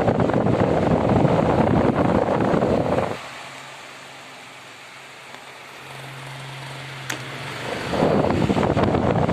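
Mondial Maxi Power 40 pedestal fan running, its airflow blowing loudly on the microphone. About three seconds in the blast drops away, leaving a low motor hum, and it comes back loud about eight seconds in.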